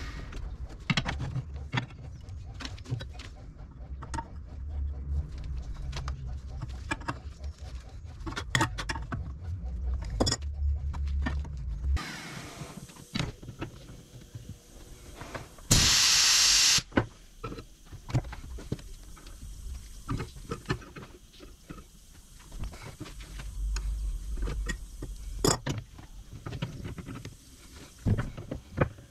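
Hot spring-steel bar being clamped in a cast-iron bench vise and twisted with a wrench: repeated metal clicks, knocks and scrapes, with a low rumble under the first half. About sixteen seconds in, a loud hiss lasts about a second.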